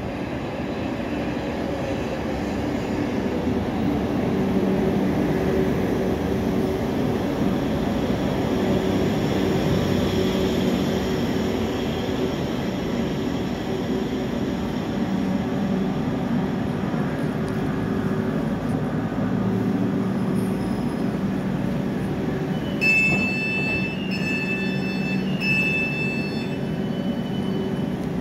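South Western Railway Class 458 electric multiple unit pulling into the platform and slowing to a stop, its motors giving a steady hum over the rumble of the wheels. About three-quarters of the way through, a run of high electronic beeps sounds several times as the doors are released, just before they open.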